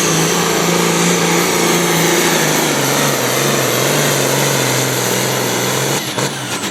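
Case Pro Farm pulling tractor's diesel engine running flat out under load as it drags the sled down the track, a loud, steady note that sags slightly in pitch. About six seconds in the sound drops sharply as the run ends.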